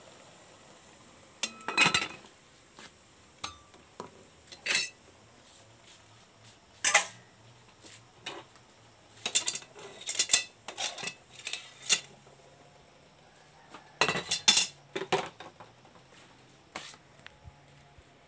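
Dishes, pots and cutlery being handled: scattered short clinks and clatters, some in quick clusters, with quiet gaps between them.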